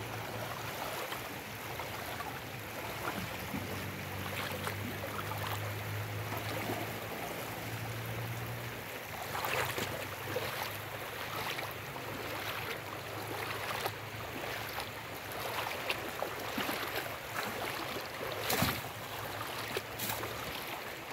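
Fast, shallow river water running steadily around the wheels of a pickup, with several splashes of water thrown from buckets onto the truck in the second half; the loudest splash comes near the end. A low hum is heard for a few seconds in the first half.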